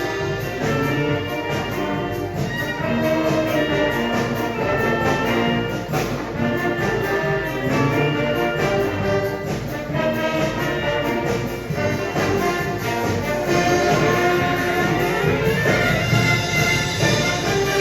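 Marching showband playing a 1970s Manila Sound medley: brass melody over a steady drum beat.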